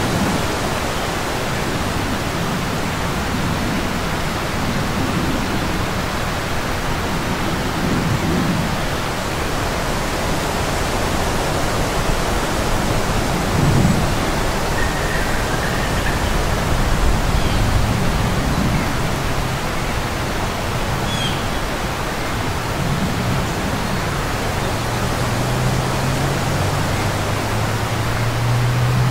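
Strong wind: a steady rushing noise with low, uneven rumbles, and a low hum near the end.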